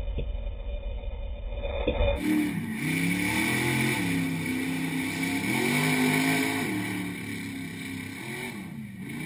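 Mega truck's engine revving hard while driving through a mud pit, muffled at first; after about two seconds it comes through clearer, its pitch rising and falling several times as the throttle is worked, and fades near the end as the truck pulls away.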